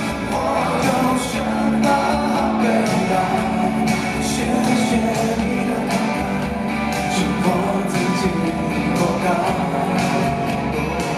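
Live pop-rock band performance: a male vocalist singing over electric guitar, bass guitar and drums, heard through the hall's sound system with the room's reverberation.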